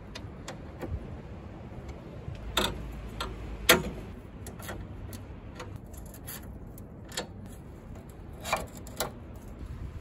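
Irregular sharp clicks and clinks of tools and metal fittings being handled at a car's radiator and its mounting bracket, the loudest a little before four seconds in.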